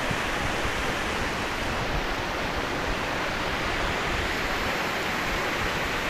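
Mountain stream of white water cascading over rocks, a steady, even rush of falling and splashing water.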